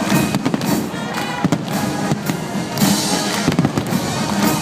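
Fireworks bursting in quick, irregular bangs, with a crackling high hiss about three seconds in, over music played loud on a sound system.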